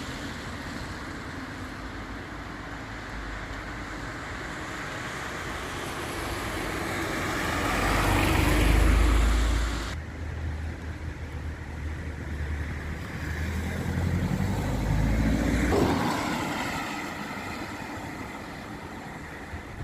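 Street traffic noise with vehicles driving past. One loud pass builds to a peak about nine seconds in and cuts off abruptly. A second vehicle rumbles past about fifteen seconds in, its pitch falling as it goes by.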